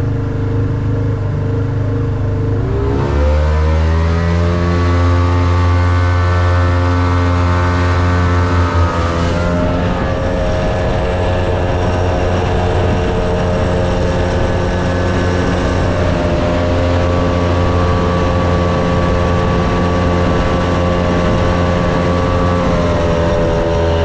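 Outboard motor on an aluminium fishing boat throttling up, its pitch rising about three seconds in, then running steadily at speed, over the rush of water spraying from the wake.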